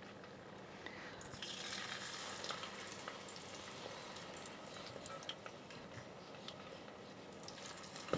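Hot oil in a deep fryer sizzling and crackling around battered chicken wings, swelling about a second in as another wing goes into the oil. A sharp clack right at the end.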